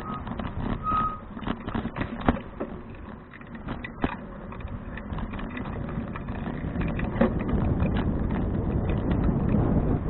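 Riding noise from a 2012 Fuji touring bicycle: wind rushing on the microphone with frequent small clicks and rattles as the bike rolls over the surface. The noise swells over the last few seconds, and a short high beep sounds about a second in.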